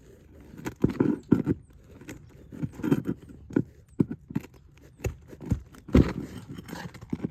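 Irregular knocks and scrapes of a hand tool working nails loose from roof shingles.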